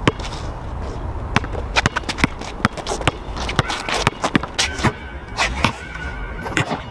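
Basketball being dribbled on an outdoor asphalt court: a run of sharp bounces at an uneven pace, over a low steady rumble.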